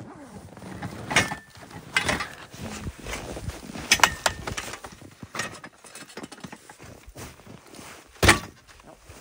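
Folding camp cots being unfolded and set up: the metal frames clicking and knocking as the joints and legs lock into place, over the rustle of the fabric covers. A few separate sharp knocks, the loudest near the end.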